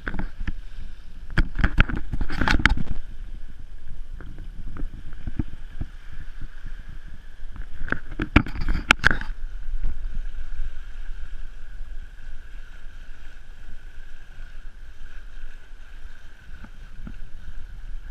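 Sailing yacht under way: wind rumbling on an action camera's microphone and water rushing past the hull, with a faint steady high whistle. Clusters of sharp knocks come about two seconds in and again about eight seconds in.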